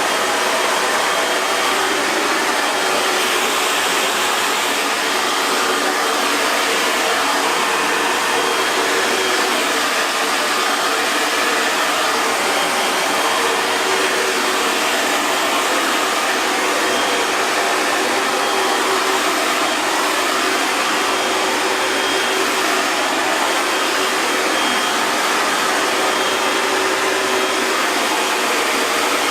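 Hair dryer running steadily: a continuous rush of blown air with a faint motor hum underneath.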